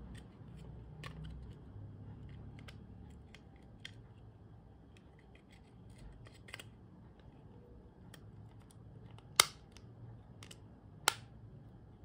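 Light plastic clicks and ticks as a laser mouse's shell and internal parts are handled and fitted back together, with two sharp, louder clicks near the end.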